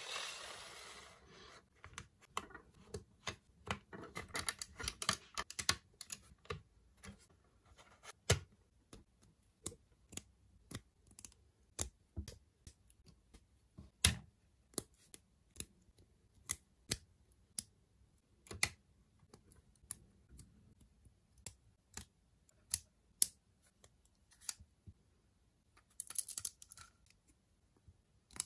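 Lego bricks and Technic beams handled and pressed together: an uneven run of sharp plastic clicks and taps, thickest around five seconds in, with short rustling bursts of loose pieces just after the start and near the end.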